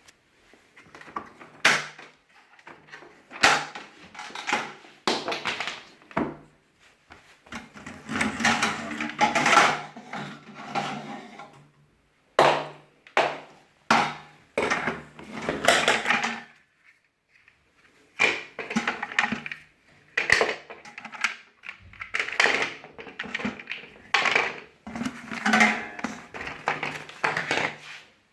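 Parts of a wet and dry vacuum cleaner and their packaging being handled: irregular clicks, knocks and rustling of plastic and cardboard, with the vacuum not running.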